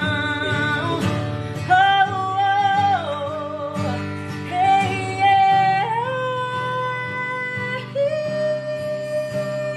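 Background music: a song with a voice holding long notes that slide between pitches over a low accompaniment.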